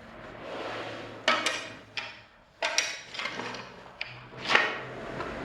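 Handling noise from the workbench: about five sharp knocks and clacks, with scraping and rubbing between them, as hard parts are moved and set against each other.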